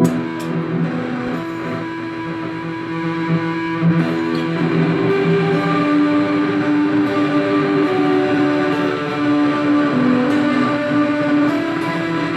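Electric guitar improvisation through an Orange Crush 35RT solid-state amp on its overdrive setting, run through reverb and delay pedals. Held notes overlap and sustain, moving to a new pitch every second or two.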